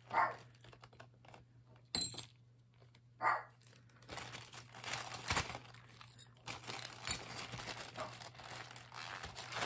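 Plastic zip-top bags crinkling and rustling as jewelry pieces are handled and pulled out, from about four seconds in. Before that, a dog barks twice and there is a single sharp knock.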